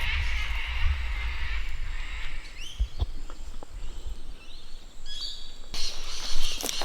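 Small birds chirping in the bush over a low rumble, with crackling rustles of movement through dry vegetation from about six seconds in.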